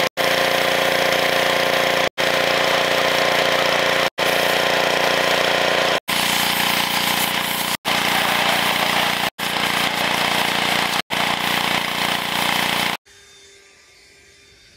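Pressure washer running, its jet spraying a steel truck frame, as a string of short takes broken by brief gaps every couple of seconds. About 13 seconds in it stops and only faint outdoor background is left.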